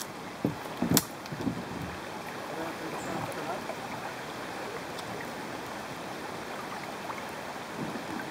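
Fast-flowing river water running steadily around a kayak, with a sharp knock about a second in and a few lighter knocks.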